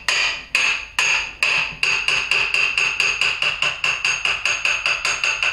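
Brass hammer striking the end of a metal tube held as a drift, pressing a part into place; each blow sets the tube ringing. The blows come about twice a second at first, then quicken to a rapid run of about four or five a second from about two seconds in.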